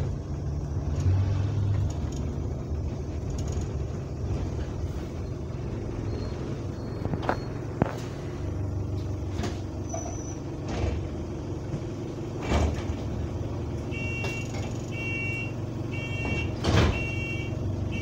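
Diesel engine of an Alexander Dennis Enviro200 single-deck bus running with a steady low rumble, heard from inside the saloon, with a few sharp knocks and rattles of the bodywork. Near the end a two-tone beep repeats about once a second.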